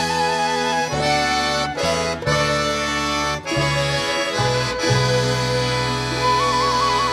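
Instrumental title music: held chords over a bass that changes every second or so, with a quickly trilled melody note at the start and again near the end.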